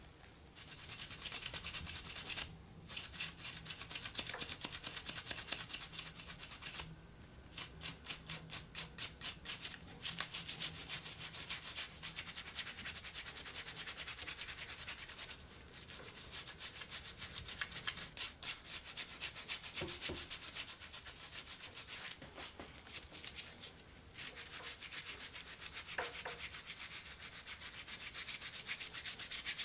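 A toothbrush scrubbing the rusted steel of an antique Bulldog revolver: quick back-and-forth strokes, about four a second in places, with a few short pauses.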